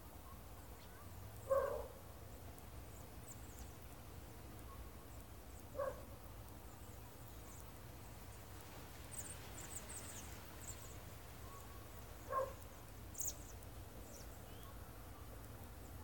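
A distant dog barking three times, single barks several seconds apart, over a low steady rumble. Faint high chirps of small birds come in the middle.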